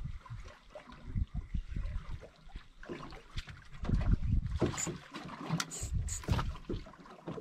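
Wind buffeting the microphone and water lapping against a small boat's hull, in uneven gusts, with a few sharp clicks over a couple of seconds past the middle.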